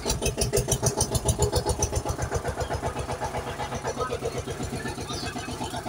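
Tractor engine chugging steadily at a low idle, a rapid, even putt-putt of about seven or eight beats a second.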